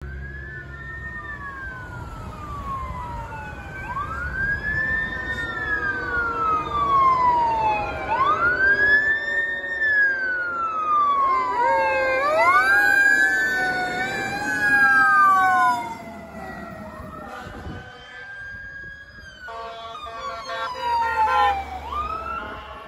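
Wailing sirens of Boston Fire Engine 20, a 2020 E-One Typhoon pumper, and dive-rescue unit J20 on an emergency response. The sirens rise and fall over and over, overlapping as two sound together, and grow louder as the trucks approach. A lower siren tone winds slowly up and back down in the middle, and steady horn blasts sound near the end as the trucks pass close by.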